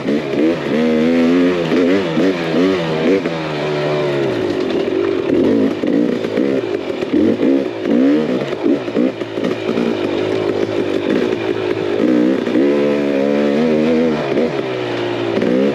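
KTM 300 XC two-stroke dirt bike engine running under changing throttle, its pitch rising and falling as the rider goes on and off the gas. It holds a steadier pitch for a couple of seconds near the start and again about twelve seconds in.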